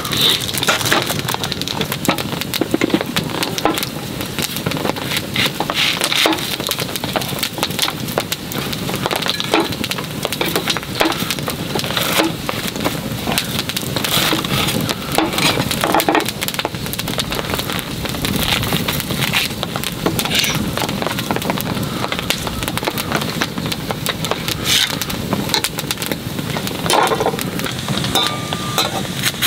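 Wood campfire crackling and snapping, with knife strokes chopping vegetables on a wooden cutting board.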